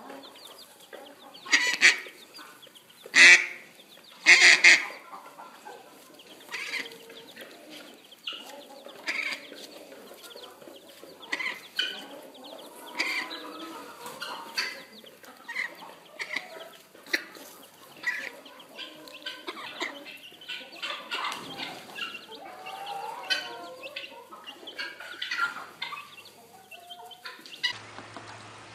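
Poultry calling in a straw-bedded pen: three loud calls in the first few seconds, then a long run of shorter clucking and honking calls.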